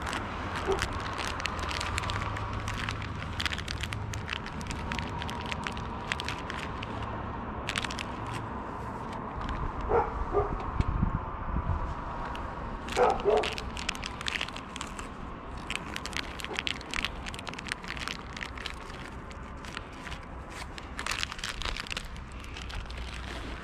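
A neighbourhood dog barking, two pairs of barks about three seconds apart, over scattered clicking and crackling.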